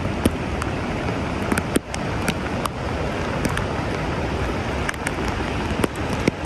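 Steady rushing noise of floodwater and wind, with scattered sharp ticks and a brief dip in level about two seconds in.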